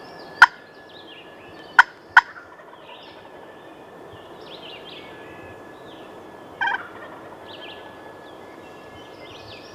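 Wild turkey tom gobbling from his roost tree, a short burst about two-thirds of the way through, over faint songbird chirps. Three sharp, very loud clicks come in the first couple of seconds.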